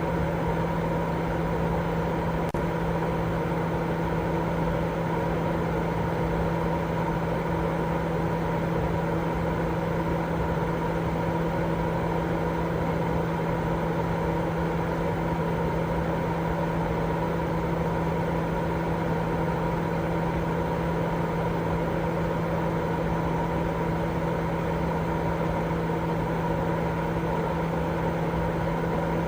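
Continuous sleep white noise: a steady, unchanging rushing noise with a constant hum underneath, like a machine drone.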